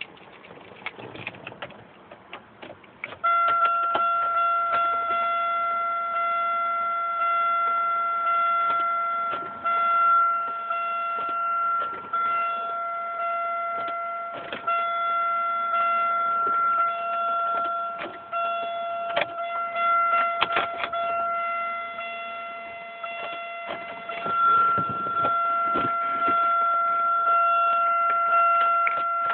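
A steady, unbroken pitched tone comes on about three seconds in and holds, with scattered clicks and knocks over it.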